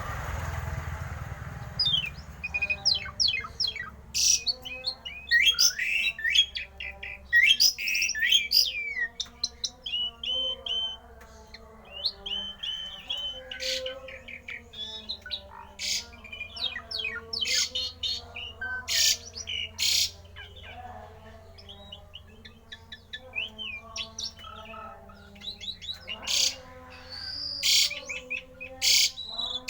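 Javan pied starling (jalak uren) singing a long, varied song of sharp whistles, clicks and harsh chattering notes.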